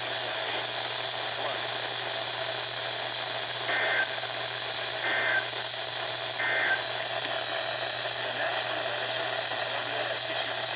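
Steady hiss from a radio receiver. About four seconds in come three short two-tone data bursts about a second apart, each roughly a third of a second long: the pattern of an EAS/SAME end-of-message (EOM) signal.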